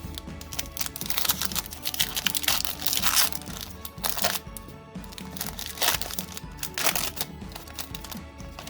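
Foil booster-pack wrapper crinkling as it is torn open and handled, in several crackly bursts, the longest in the first few seconds, over background music.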